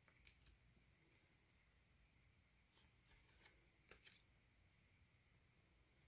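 Near silence, broken by a few faint, short clicks and rustles of photocards being shuffled in the hands, mostly in the first second and again about three to four seconds in.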